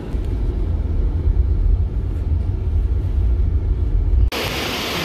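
Low, steady rumble of a vehicle's engine and road noise heard from inside the cabin. About four seconds in, it cuts off abruptly to the steady rush of a waterfall.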